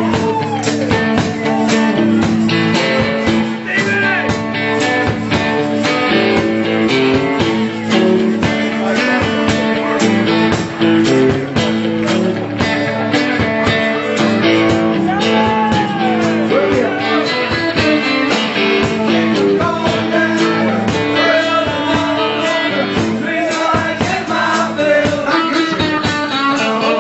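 Live rock band playing loud and full: electric guitars and drums on a steady beat, with voices singing over them.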